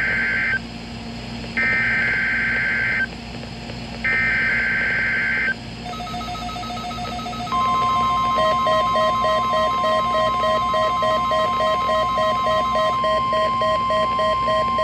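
NOAA Weather Radio Required Weekly Test: three bursts of warbling SAME digital header tones, each about a second and a half long with static between, start the test. About seven seconds in, the steady 1050 Hz warning alarm tone begins, and a second, rapidly pulsing alarm tone soon joins it.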